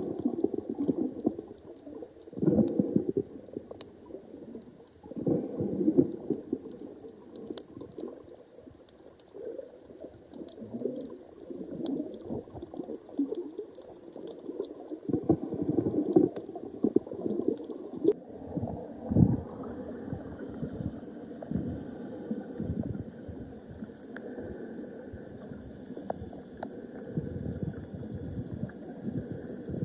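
Muffled sloshing and gurgling of water around a camera held underwater, in uneven surges, with a faint crackle of tiny clicks throughout. About two-thirds of the way through, a steady high hiss joins in.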